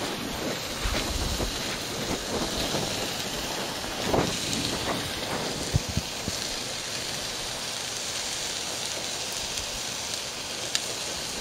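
Marinated bison hanger steak sizzling on a hot cast iron grill grate over charcoal: a steady hiss with a few small pops.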